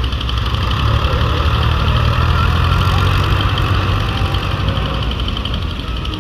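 Diesel engine running, growing louder about a second in and easing back slightly near the end.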